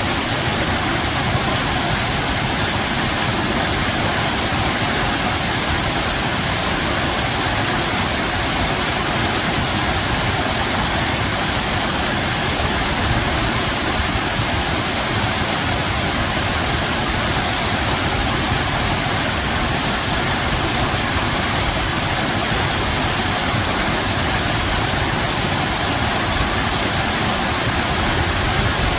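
Steady rushing water, an even unbroken noise with no changes.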